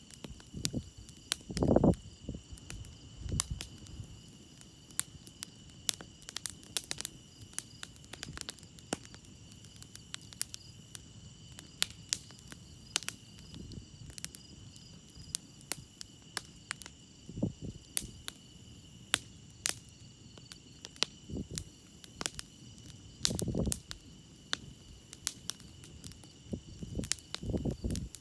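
Campfire crackling with frequent sharp pops and a few louder low puffs of hiss, over a steady high chorus of crickets.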